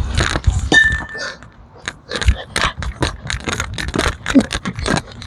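A rapid run of sharp clicks and clinks, about four to five a second, with a brief ringing tone about a second in.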